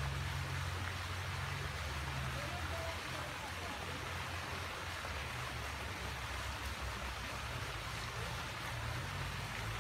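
Steady rain falling on the lake water and wet ground, an even hiss with a low steady hum underneath.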